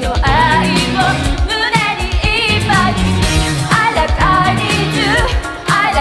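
Pop song with singing over a steady dance beat and bass line.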